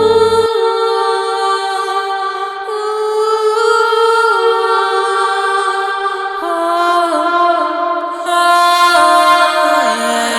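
Music: held, layered voice-like tones that step from one pitch to the next every second or so, with the bass dropping out about half a second in.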